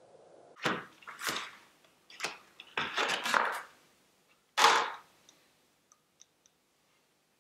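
Hand tools, pliers and screwdrivers, being picked up and set down on a wooden workbench: a series of sharp clacks and rattles, the loudest about four and a half seconds in, then a few faint ticks.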